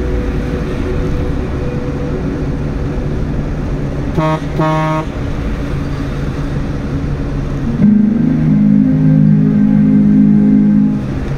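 Engine and tyre noise inside a car driving in highway traffic. About four seconds in, a vehicle horn gives two short toots. From about eight seconds in, a louder low steady drone comes up for about three seconds.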